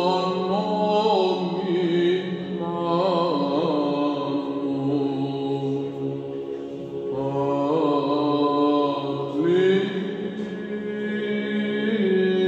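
Byzantine chant: a solo voice sings a slow, melismatic Greek Orthodox hymn melody over a held low drone (ison). The drone shifts to a new note a few times.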